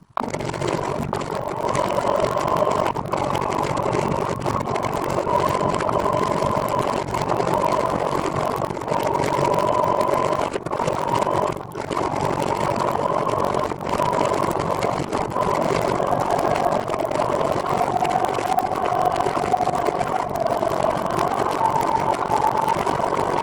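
A trike in motion, with a steady running drone of two whining tones over road and wind noise; the lower tone wavers in pitch in the second half.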